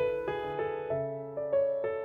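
Background piano music: a gentle melody of single struck notes, a few a second, each fading away.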